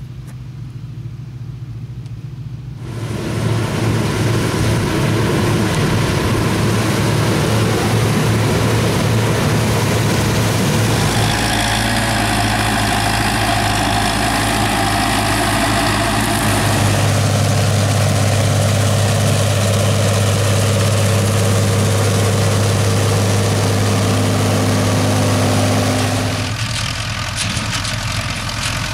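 Diesel engines of wheat-harvest machinery, combine harvesters or tractors, running steadily with a deep hum and a thick mechanical noise. The sound jumps abruptly a few times.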